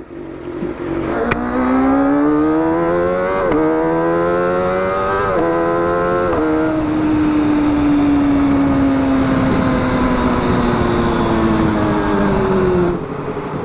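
Sport motorcycle engine pulling away: the revs climb, then drop sharply with an upshift about three and a half seconds in, again near five and a half, and once more just after six seconds. After that the throttle is eased and the revs sink slowly for several seconds, heard from the rider's seat with wind on the microphone.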